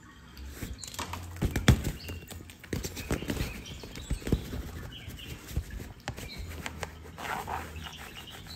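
A cat playing inside a fabric play tunnel: irregular thumps and scuffs as she bats at a string toy and scrabbles against the tunnel wall, loudest about one to two seconds in.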